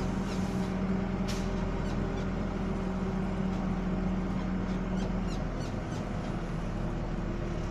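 Diesel engine running steadily, heard from inside the machine's cab, with light rattles and clicks. There is a short hiss about a second and a half in, and the engine note changes about five seconds in.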